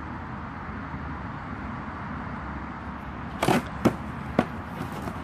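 A steady rushing noise throughout, with a few sharp cardboard snaps and scrapes about three and a half to four and a half seconds in as the top of a cardboard box is pried open.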